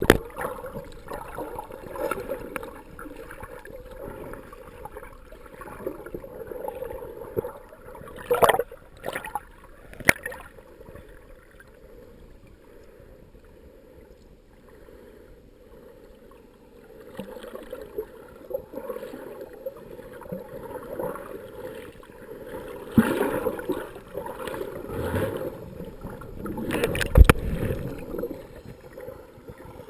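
Underwater sound on a scuba dive: a diver's regulator bubbles gurgling in swells, with a few sharp clicks about eight to ten seconds in.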